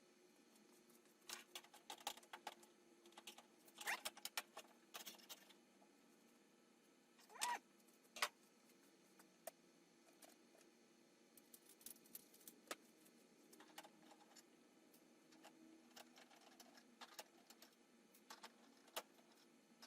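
Faint, scattered clicks and taps of hand work on an oven door, small metal parts and screws being handled and loosened, with a few sharper knocks about 4 s and 7 to 8 s in.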